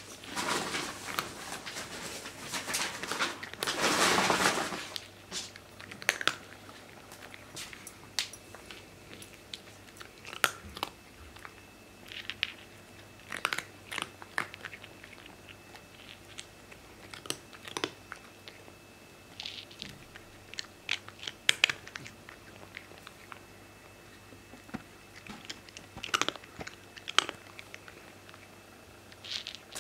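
A cat crunching dry kibble: sharp, irregular crunches, thick and loud for the first four or five seconds, then sparser with short pauses between bites.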